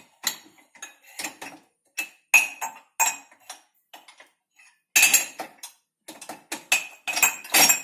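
Crockery clinking and clattering as mugs, cups and bowls are set into dishwasher racks: a run of sharp, irregular knocks, with a louder clatter about five seconds in and again near the end.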